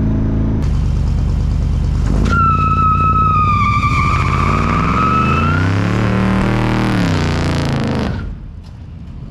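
1992 Chevy C1500's 350 small-block V8 running. About two seconds in, a high squeal starts and lasts about three seconds. The engine pitch then rises and falls, and the sound drops away sharply near the end.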